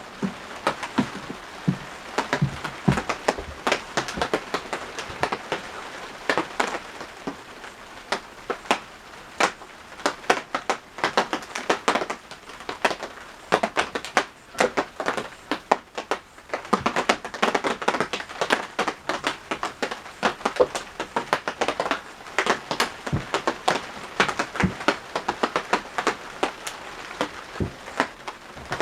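Rain on the roof, heard from inside the hut: a dense, irregular patter of drops over a steady hiss, thinning briefly about halfway through.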